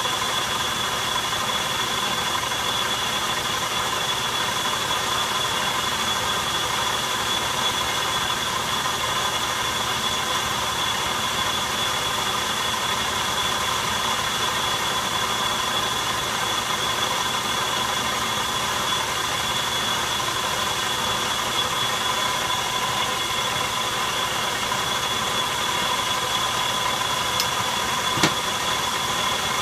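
Metal lathe running steadily while a turning tool cuts along 1018 steel stock, a steady high whine over the machine noise. One sharp click near the end.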